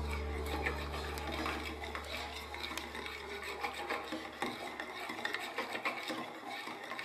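Wire whisk beating a thin egg, milk and carrot batter in a ceramic bowl: a quick, irregular run of scrapes and small clicks against the bowl. A strummed guitar chord fades out over the first two seconds or so.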